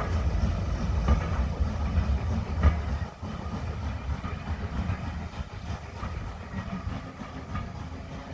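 Heritage railway train running on the rails: a heavy low rumble with a few sharp wheel clicks over the rail joints, dropping down and quieter about three seconds in.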